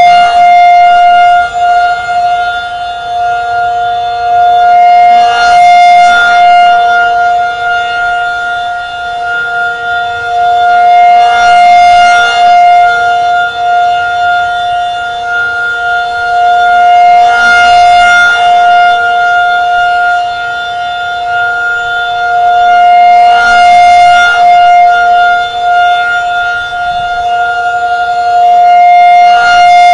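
Federal Signal 2001-SRN rotating electromechanical warning siren during a test, holding one steady high pitch at full speed. The sound swells and fades about every six seconds as the slowly rotating horn sweeps past.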